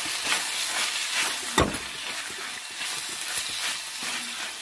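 Fried okra, onion and tomato sizzling in oil in a stainless steel kadai while a steel ladle stirs and scrapes through it. The ladle knocks sharply against the pan once, about one and a half seconds in.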